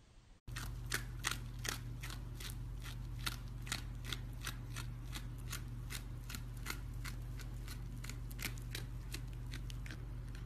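A red fox chewing, a steady run of sharp crunching clicks at about three a second over a low steady hum, starting suddenly about half a second in.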